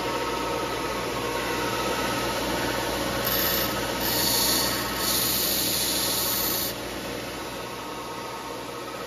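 Rockwell/Delta belt sander running steadily while a steel carpet-knife blade, held in a wooden fixture, is pressed against the belt to grind it shorter. The grinding comes in three spells, from about three seconds in to about seven, and then the sander runs on alone.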